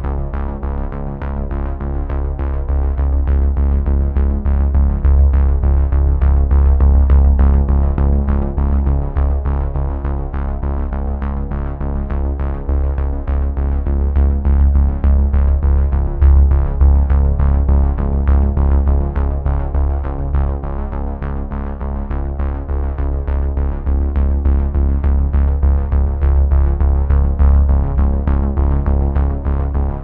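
Background electronic music: synthesizer chords over a heavy bass and a steady beat.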